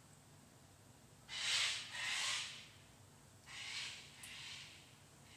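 Four short breathy puffs of air in two pairs, the second pair softer, from a person blowing out.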